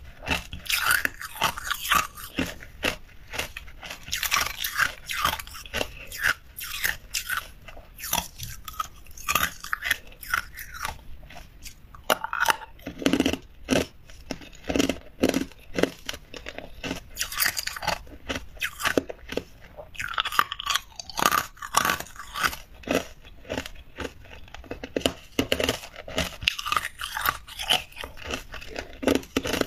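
A person chewing hard ice cubes, a dense, irregular crunching and crackling of breaking ice in the mouth.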